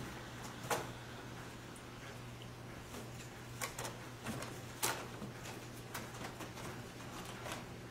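Scattered light taps and crinkles as cats bat at foil balloons and their ribbons, over a steady low hum.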